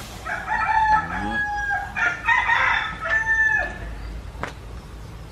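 Rooster crowing: one long crow of about three seconds that rises at the start, holds, and drops away at the end. A sharp click follows near the end.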